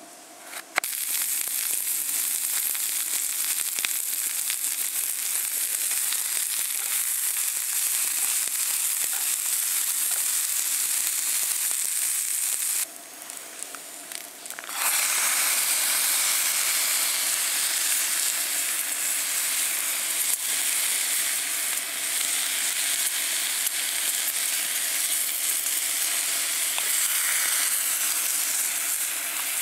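Food sizzling in a hot pan, a dense steady sizzle that starts abruptly, breaks off for about two seconds near the middle, then comes back.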